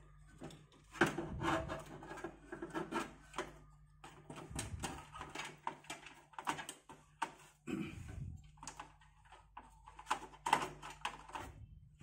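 Motherboard being fitted into a metal PC cabinet, its rear sockets pushed out through the back opening: a run of irregular clicks, taps and light rattles, the sharpest click about a second in.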